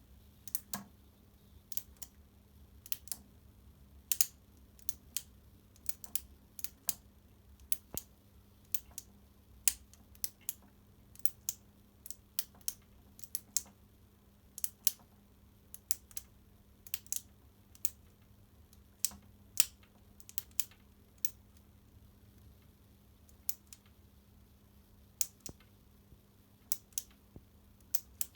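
Irregular small, sharp clicks and taps, one or two a second, from small plastic parts and hand tools being handled while a work light is taken apart or put back together. A faint steady hum runs underneath.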